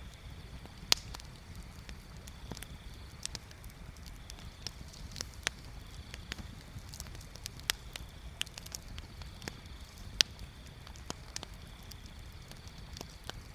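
Bonfire crackling: irregular sharp pops and snaps, the two loudest about a second in and near ten seconds, over a steady low rumble.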